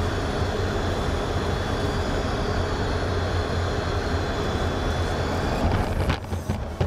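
F/A-18F Super Hornet's twin jet engines running, heard from inside the cockpit over the rush of air, with a faint high whine. Near the end come a few sharp knocks as the jet comes down on the carrier deck.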